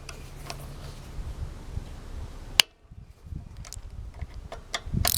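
Scattered clicks and small knocks of hand tools working on a small engine while the coil bolts are loosened with a socket wrench, with one sharp click about two and a half seconds in.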